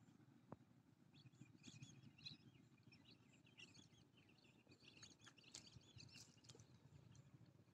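Near silence: faint birds chirping and twittering in short clusters, over a low background rumble, with a single click about half a second in.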